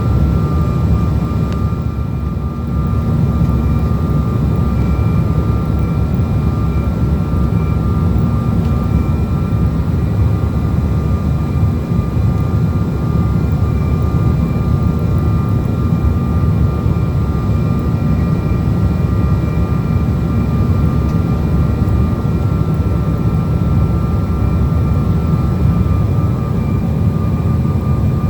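Jet airliner engines and airflow heard from inside the cabin: a steady loud low rumble with a constant whine above it, unchanging throughout.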